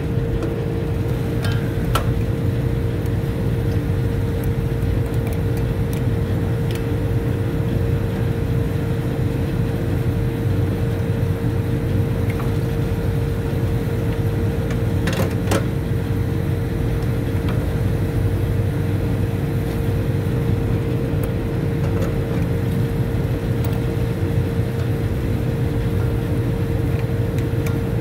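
Steady machinery hum with a constant mid-pitched whine, typical of running rooftop refrigeration and air-conditioning equipment, with a couple of light metal tool clinks, about two seconds in and again about fifteen seconds in.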